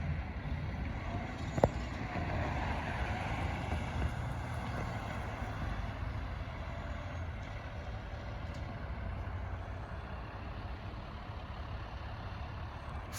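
Fire truck engine running steadily, with one sharp click about a second and a half in.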